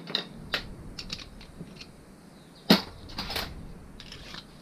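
Metal hand tools clicking and clinking against a Derbi engine crankcase during disassembly, with one sharp knock a little before three seconds in.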